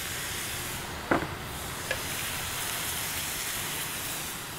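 Apple snail and mushroom stir-fry sizzling steadily in a hot wok as sauce is poured in and the food is stirred, with two brief knocks about one and two seconds in.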